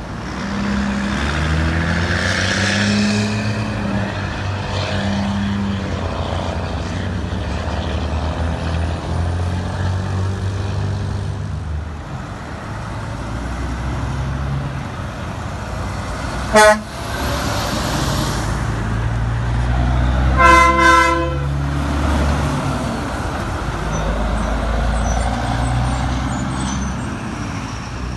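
Diesel semi trucks running as they pull through an intersection. A horn gives a very short toot about two-thirds of the way in, then a longer blast of about a second a few seconds later.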